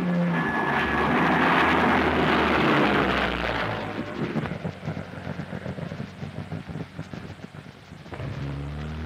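Spitfire flying past on an old film soundtrack, heard through a loudspeaker in a room. A loud rushing swell over the first few seconds gives way to a fast, fluttering drone that fades, and a steady engine hum comes back in near the end.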